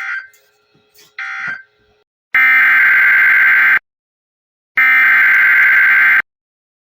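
Emergency Alert System SAME data bursts, a buzzing two-tone digital signal. It starts with the tail of one short end-of-message burst and a second one about a second in, marking the end of the previous alert. About two seconds in come two longer header bursts, each about a second and a half long with a second's gap between them, which open the next alert.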